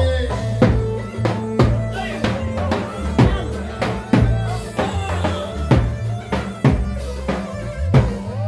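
Live Lebanese dabke music: a tabl drum beats loudly about twice a second over a deep, stepping bass line and melody.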